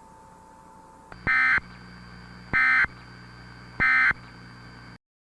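Emergency Alert System end-of-message data tones: three short, identical electronic data bursts about a second apart, over a faint steady hum, marking the close of the alert. The audio then cuts off to silence.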